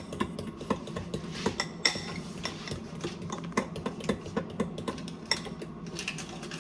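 A utensil stirring muffin batter in a mixing bowl, with repeated clicks and scrapes against the bowl's side.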